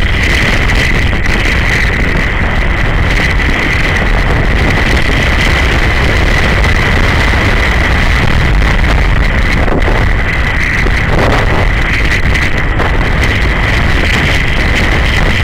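Motorcycle riding at a steady cruise: wind rushing over the camera's microphone over the low running of a BMW G 650 GS Sertao's single-cylinder engine, with a steady level throughout.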